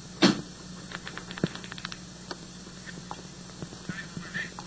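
Telephone call recording on old tape: steady hum and hiss with scattered crackles and clicks on the line, and one louder knock about a quarter second in.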